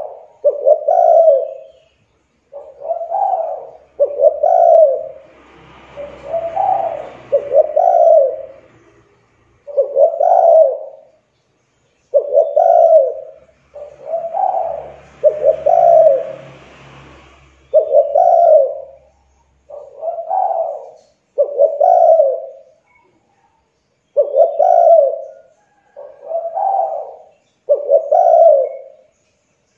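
Spotted dove (tekukur) cooing over and over in short mellow phrases, about one note every second or two. Twice a faint low rumbling noise passes underneath the calls.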